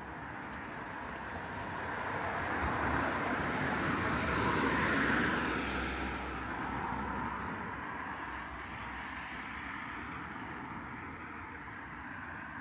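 A vehicle passing by, its noise building slowly to a peak about five seconds in and then fading away.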